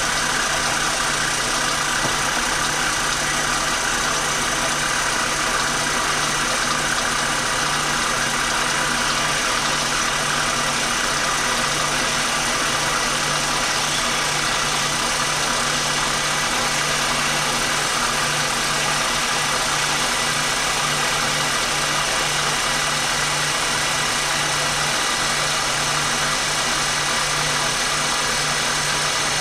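Bandsaw running steadily with a constant hum and hiss, cutting through a 3D-printed plastic part.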